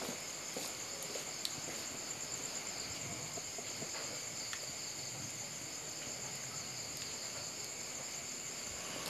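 Night insects chirring steadily in two high, even trills, with a few faint ticks now and then.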